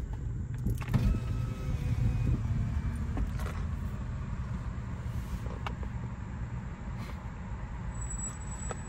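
Car interior noise while driving: a steady low rumble of engine and road, with a few light clicks.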